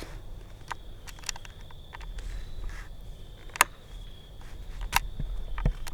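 Scattered light clicks and taps of a flathead screwdriver working a chainsaw's bare on/off switch, its button missing; the loudest click comes about three and a half seconds in. A faint steady high whine runs underneath.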